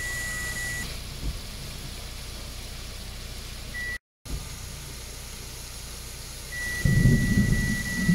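Muddy floodwater rushing and cascading over rocks in a rain-fed torrent, a steady rushing noise. A steady high-pitched tone sounds at the start and again from about six and a half seconds, the sound cuts out for a moment about four seconds in, and a loud low rumble comes in about seven seconds in.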